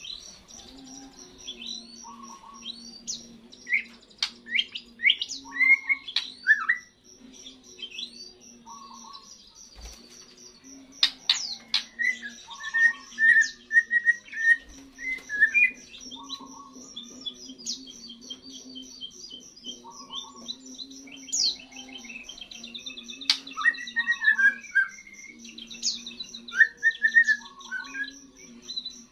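Young white-rumped shama singing in short bursts of varied whistles, quick rising and falling sweeps and trills: its first song after its moult. Behind it run a steady high pulsing note and a short call repeated about every two seconds.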